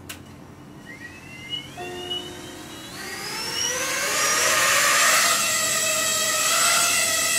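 Eachine Tyro79 FPV quadcopter's brushless motors spinning up: a click, then from about a second in a whine that rises steeply in pitch and grows louder, levelling off after about four seconds into a steady high whine.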